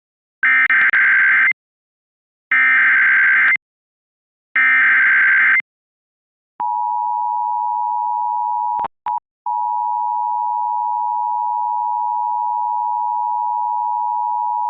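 Emergency Alert System tones announcing a National Weather Service warning: three short, harsh SAME data bursts about two seconds apart, then the steady two-tone attention signal held for about eight seconds, with a brief break a couple of seconds after it starts.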